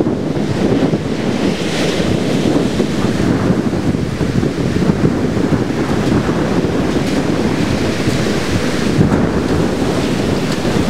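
Strong storm wind blowing on the microphone as a steady low rush, over rough surf breaking on the beach.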